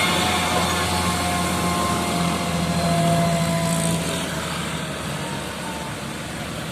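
A heavy road vehicle's engine running as it drives past, its faint whine falling a little in pitch, then fading away through the second half.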